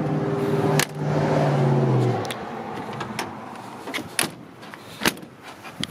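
A motor vehicle's engine humming steadily, dipping slightly in pitch as it fades out about two seconds in. Several sharp clicks follow from the car's door and its hardware being handled.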